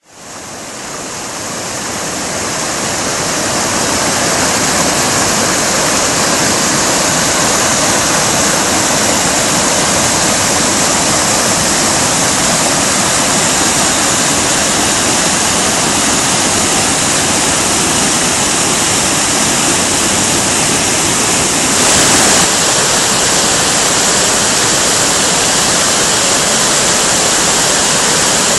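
Waterfall cascading over rocks: a steady rushing of white water that fades in over the first few seconds. A brief louder surge comes about three-quarters of the way through.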